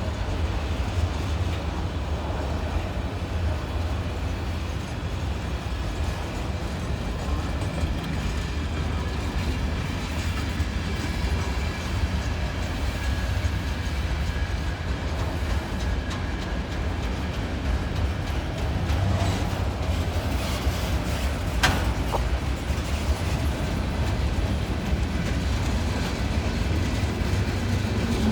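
Long freight train rolling past: a steady rumble of railcars on the rails with faint high squealing tones from the wheels, and a single sharp click about three-quarters of the way through.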